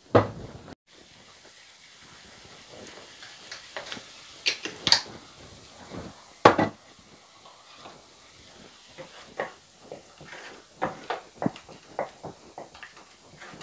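Ground onion paste frying in a stainless steel pan with a faint steady sizzle, while a spoon scrapes and knocks against the pan as it is stirred. The sharpest knocks come just after the start, around four and a half to five seconds in, and at six and a half seconds, with lighter taps near the end.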